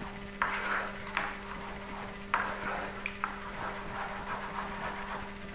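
Wooden spoon stirring thick melted chocolate and cream in a metal saucepan: several short scrapes and a few sharp knocks against the pan. A steady low hum runs underneath.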